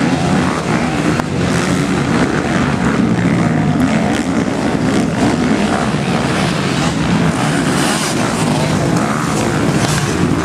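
Several motocross bikes racing together, their engines revving hard, the pitch rising and falling as riders work the throttle over the jumps.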